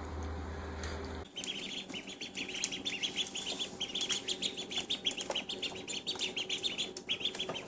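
Ducklings peeping, a dense run of short, high chirps several times a second, beginning about a second in after a steady low hum cuts off.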